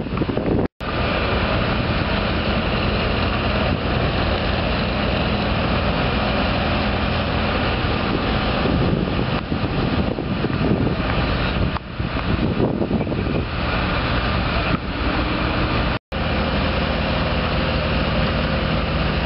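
Work trucks and heavy equipment running: a steady engine rumble with a constant hiss over it. The sound drops out to silence for an instant twice, about a second in and near the end.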